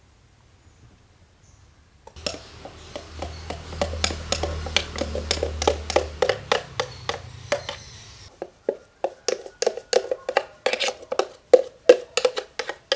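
A steel spoon scraping and knocking against the inside and rim of a steel mixer-grinder jar as thick batter is emptied into a bowl. It is a quick run of metallic taps, several a second, beginning about two seconds in. A low hum runs beneath the first half.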